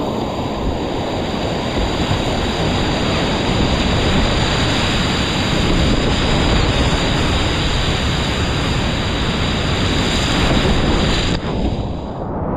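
Loud, steady rushing of whitewater rapids around a kayak, with water splashing over the camera. Near the end the higher hiss drops away as the rapid eases.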